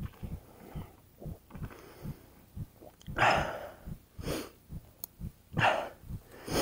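A mountain biker breathing hard, with loud, gasping breaths about every second or so from about halfway in, over a run of short low thumps.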